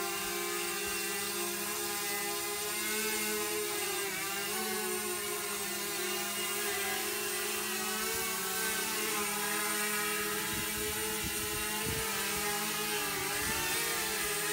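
DJI quadcopter drone hovering, its propellers and motors giving a steady multi-toned whine whose pitch wavers slightly now and then as it holds position.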